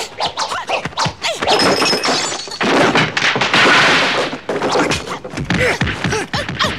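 Fight-scene sound effects: a rapid run of punches and whacks, with a loud crash of wooden chairs smashing for about two seconds midway through.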